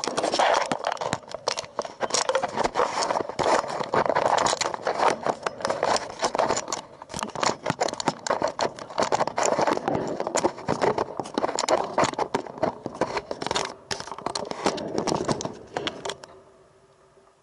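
Camera handling noise: close, loud scraping, rattling and clicking as the camera rubs and knocks against the chain-link backstop fence, stopping about a second before the end.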